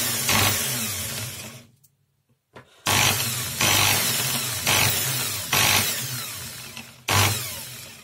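Brushed electric motor of a PROTON corded drill-driver, housing open, switched on in several short runs, each starting suddenly and fading as it runs down. It has a rattle that the owner traces to the armature bearing, loose in its seat and bouncing as it spins.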